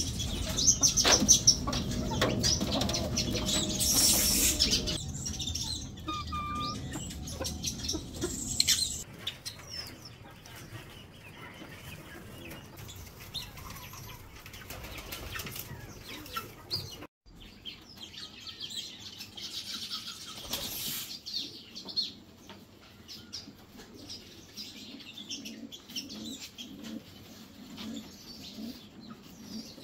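Caged aviary birds chirping, with a louder stretch of noise in the first five seconds.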